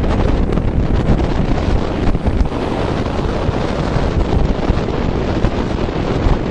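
Storm wind buffeting the microphone over heavy surf breaking, a steady unbroken rush strongest in the low end.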